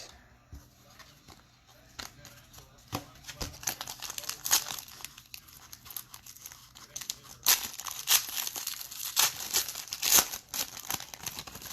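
Foil trading-card pack wrapper being torn open and crinkled, an irregular run of crackles that grows busier and louder through the second half.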